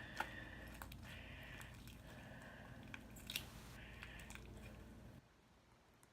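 Faint squishing and crackling of overactivated slime being worked by hand, with a couple of sharper clicks. The low background hum cuts off about five seconds in.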